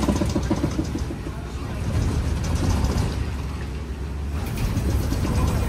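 Open-sided safari truck driving over a rough dirt track, heard from on board: a steady low engine and road rumble with irregular rattles and knocks from the jolting vehicle body.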